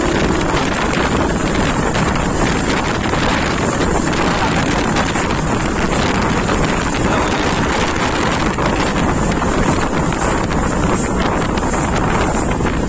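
Wind buffeting the microphone over the steady engine and tyre noise of a light cargo truck driving past on the road.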